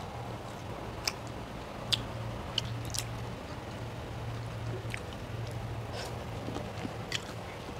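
Close-up eating of spaghetti with prawns: chewing with a handful of sharp, short mouth clicks and smacks spread through, over a steady low hum.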